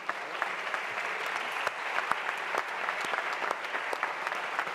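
Audience applauding, a dense steady clapping throughout.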